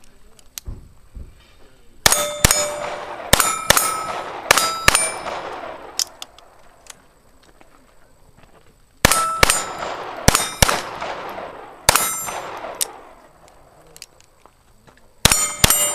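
Pistol shots in three quick strings, with steel targets clanging on hits and ringing on after each strike.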